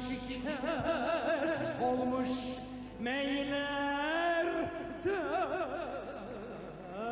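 Live Turkish folk music, a Bayburt türkü: an ornamented melody with wide vibrato and melismatic turns over steady held accompaniment, sliding up to a long held note about three seconds in.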